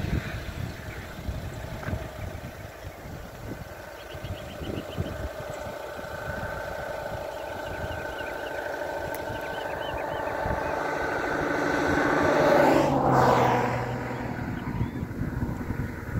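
A motor vehicle approaching steadily louder, passing close by with a drop in pitch about 13 seconds in, then fading away.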